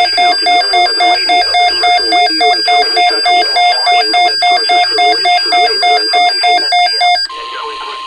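Weather alert radio's alarm beeping rapidly, about three loud electronic beeps a second, over a fainter broadcast voice, signalling an incoming NOAA Weather Radio alert. About seven seconds in the beeping stops and the steady 1050 Hz NOAA Weather Radio warning alarm tone begins.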